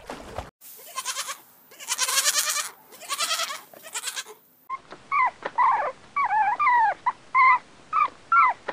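Young lambs or goat kids bleating in quavering calls for the first half. Then a small terrier gives about ten short, high yaps and yelps in quick succession.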